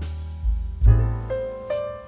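Background piano music: separate notes over deep bass notes.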